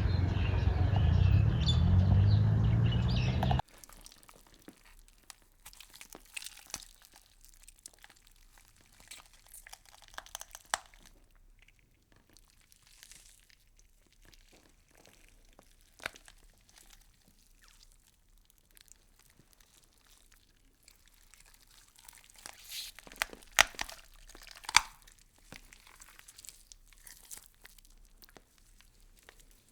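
A loud low hum made of several steady tones cuts off abruptly a few seconds in. After it come faint, scattered crackling and crunching clicks, with a few sharper snaps near the end: insects chewing through leaves.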